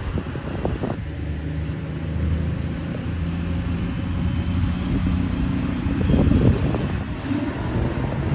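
A classic car's engine running, a steady low engine note that swells briefly about six seconds in.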